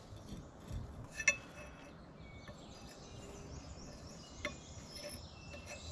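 A few light metallic clinks as the axle shaft, its new bearing and retainer ring are handled on a steel bench, the sharpest about a second in and another near the end, over a faint steady outdoor background.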